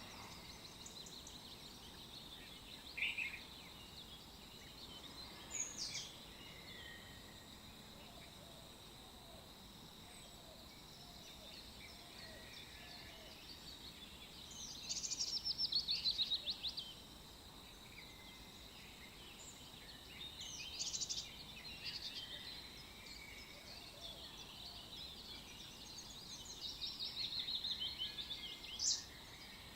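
Songbirds singing: scattered short chirps, with longer rapid trills around the middle and again near the end, over a faint steady hiss and a thin, steady high whine.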